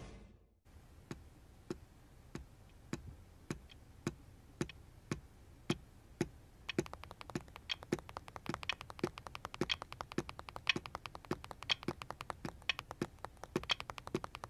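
Quiet, evenly spaced clicks about two a second, joined from about seven seconds in by a faster, denser clicking rhythm.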